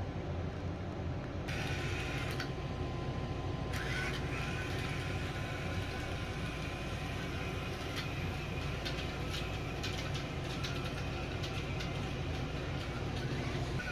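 Small electric gear motors of an Arduino robot car running steadily: a low whirring hum, with scattered light clicks and rattles in the second half.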